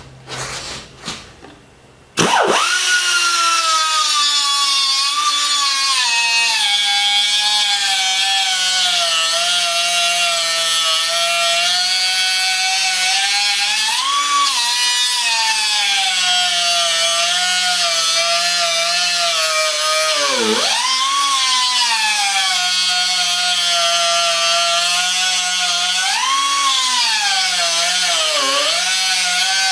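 Handheld cutoff tool with a thin abrasive wheel grinding a groove along a crack in cast iron. A high whine starts about two seconds in, and its pitch sags each time the wheel bites into the cut, three times deeply, then recovers.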